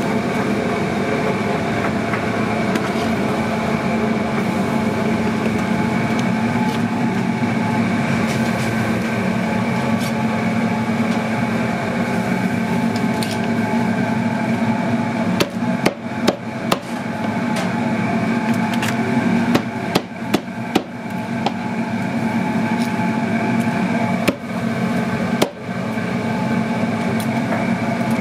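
Cleaver chopping grilled jerk chicken on a plastic cutting board: a string of sharp chops in the second half, over a steady kitchen machinery hum.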